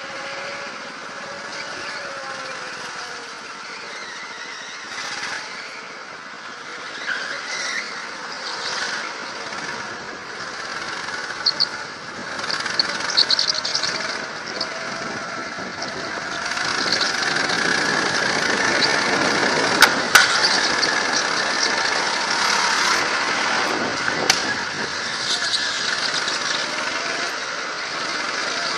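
Go-kart engine running under throttle from the driver's seat, its pitch rising and falling through the corners, with tyres squealing on the smooth track. It grows louder about halfway through, and two sharp knocks come in the second half.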